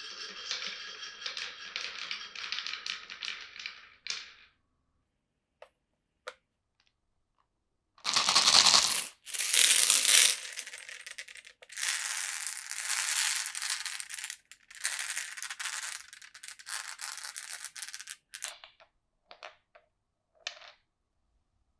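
Glass marbles rolling and clattering through a wooden marble run. A dense rattle of many small clicks for about four seconds gives way to a near-quiet gap with a few single ticks. From about eight seconds in comes a louder stretch of rolling and clacking with short breaks, trailing off into scattered clicks.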